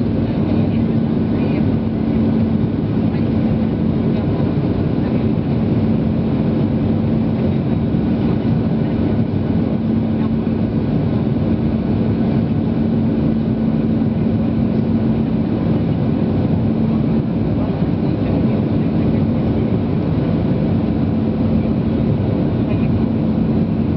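Boeing 737-800 cabin noise in flight, heard inside the cabin beside the wing's CFM56-7B turbofan engine: a steady rushing drone of engine and airflow with a constant low hum running through it.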